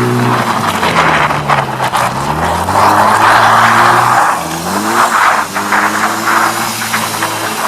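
1995 BMW M3 E36's straight-six engine revving up and falling back several times while the tyres squeal and scrub in a slide; the squeal is loudest about three to four seconds in.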